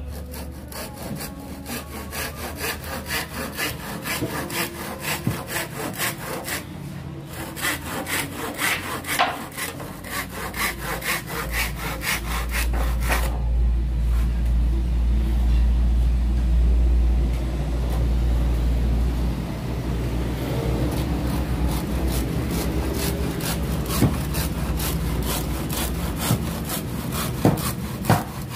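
Carl Schlieper hand saws cutting through plywood in quick, even back-and-forth strokes: a fine-tooth saw first, then, after a brief pause about halfway, a coarse-tooth saw. A low rumble comes in under the sawing from about halfway on.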